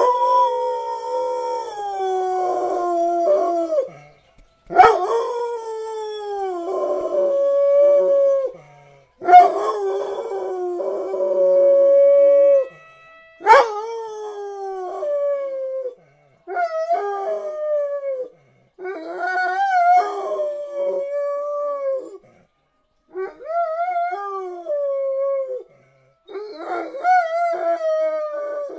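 A dog howling: a series of about eight long howls, each a few seconds long and sliding down in pitch, with short breaks between them. The howling is set off by sirens.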